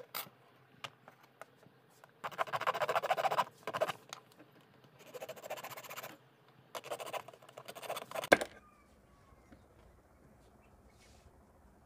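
A hacksaw blade, worked by hand, sawing through a thin plastic pen barrel. There are three short bouts of rapid rasping strokes, and the last one ends about eight seconds in with a sharp crack as the cut piece comes free.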